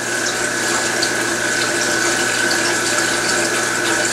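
Reef aquarium's circulation pump running with a constant hum, and water flowing steadily through the system.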